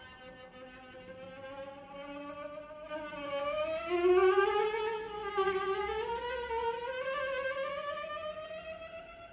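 Solo cello playing slow, sustained high notes in two lines that glide slowly upward. It swells to its loudest about four seconds in, then fades.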